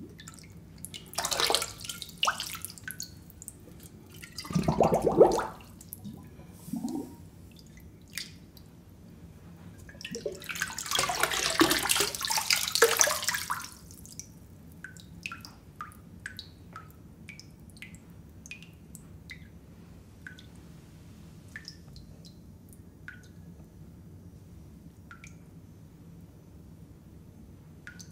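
Water squirted from a hand-held sprayer onto wood: a few spurts in the first half, the longest and loudest coming a little after ten seconds in. After that comes a long run of small, separate drips.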